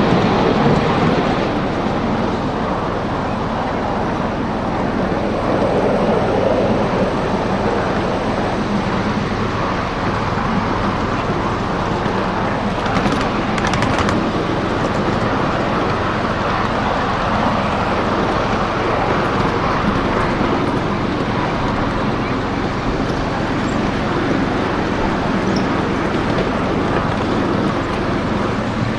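Miniature ride-on train running along its track, heard from aboard a riding car: a steady rumble of small wheels on the rails, with a few clicks about halfway through.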